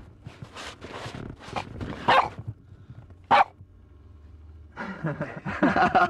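A young dog barking in short, sharp barks: single barks about two seconds and three and a half seconds in, then a quick run of barks near the end.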